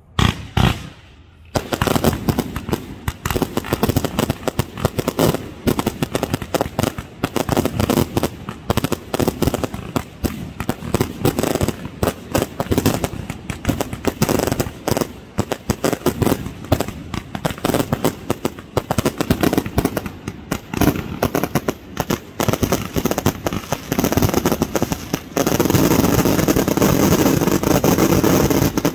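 Fireworks going off in quick succession: a rapid, continuous run of bangs and crackles from aerial bursts. It turns denser and louder about 25 seconds in.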